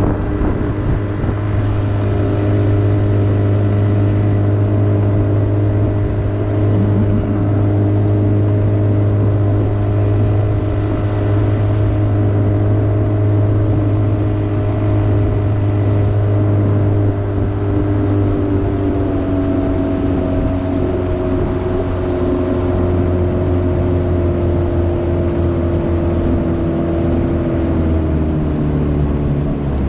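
A 30-horsepower Evinrude outboard motor running steadily, driving a small jon boat under way. Its note drops a little about two-thirds of the way through and again near the end.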